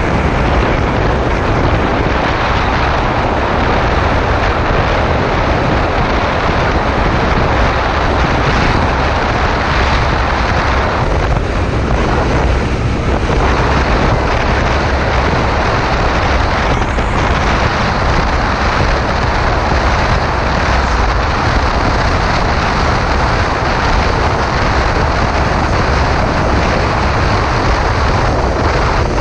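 Steady wind rush on the microphone of a moving motorcycle at highway speed, with engine and road noise from the 2015 Yamaha FZ6R mixed in underneath.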